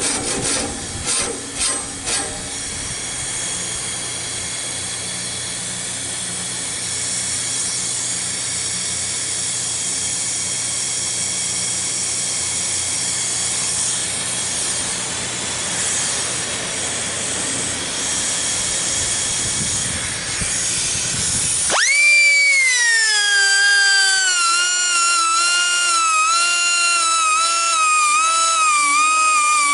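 Handheld air tool grinding the teeth of a Wood-Mizer sawmill band blade: a few short strokes, then a steady hiss with a high whine for about twenty seconds. It cuts off suddenly and music with gliding, wavering notes takes over.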